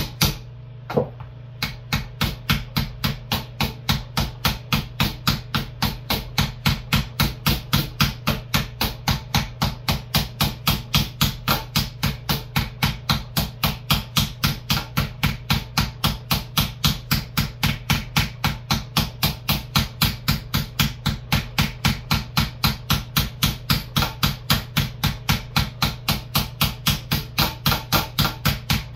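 A hammer steadily tapping a punch against the steel final-drive backer plate of an Allis-Chalmers 15-25 tractor, about three sharp metallic strikes a second, in an even rhythm that starts about two seconds in.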